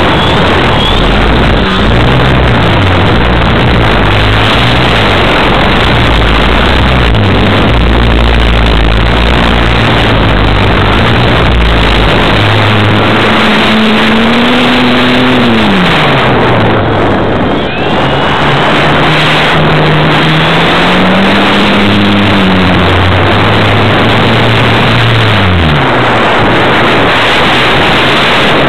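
Motor and propeller of a radio-controlled model airplane heard from its onboard camera, a loud rushing of wind and prop wash over a low motor tone. The tone wavers and twice climbs and then falls away in pitch in the second half.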